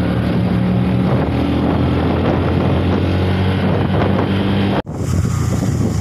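Motorcycle engine running at a steady speed while riding, with wind noise on the microphone. The sound cuts out for an instant near the end, then resumes.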